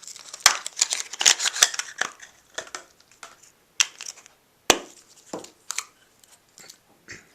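Packaging of a roll of Ilford HP5 Plus 35mm film being opened by hand: crinkling and tearing with sharp clicks, busiest in the first two seconds, then scattered clicks and taps.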